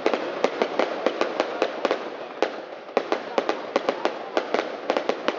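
Aerial fireworks bursting: a fast, irregular string of sharp bangs, about four a second, over a continuous noisy background, with a short lull about two to three seconds in.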